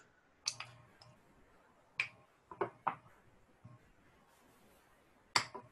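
Reed knife scraping oboe cane: about five short, separate scratchy strokes, two of them close together about three seconds in, the loudest near the end.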